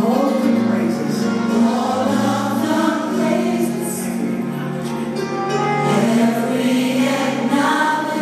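Gospel music with a choir singing sustained, gliding notes.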